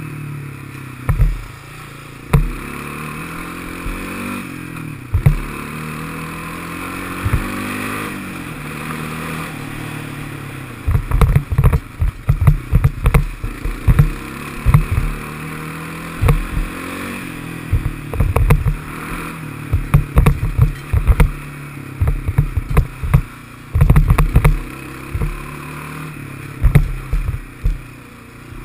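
Honda FourTrax ATV's single-cylinder four-stroke engine running under way, its pitch rising and falling with throttle and speed. From about ten seconds in there are frequent sharp knocks and clatter as the machine jolts over the rough dirt trail.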